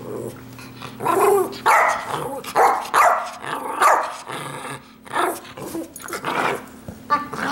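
Small dog barking, about four loud barks in the first four seconds, then quieter growling and a few more barks as a second small dog joins it in play.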